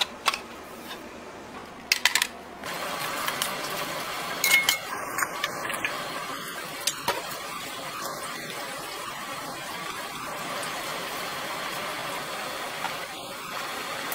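A few sharp clinks of ceramic bowls, then from about three seconds in the steady rushing bubble of water at a rolling boil in a large pot, with a few knocks of a ladle stirring it.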